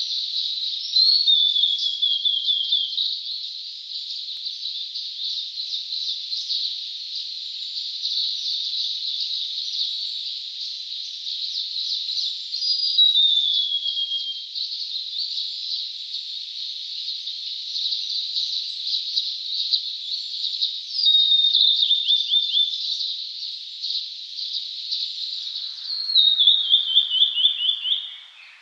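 Blue-and-white flycatcher (ōruri) singing: four phrases, each ending in a quick run of notes stepping down in pitch, over a dense, steady high-pitched background chorus.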